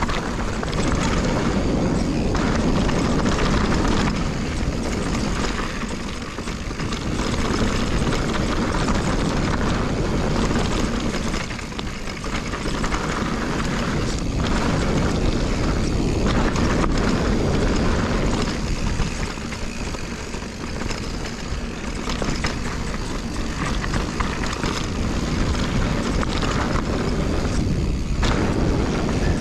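Mountain bike descending a dirt trail at speed: a steady rush of wind on the camera microphone mixed with tyre noise and the bike rattling over the ground, easing off briefly a few times.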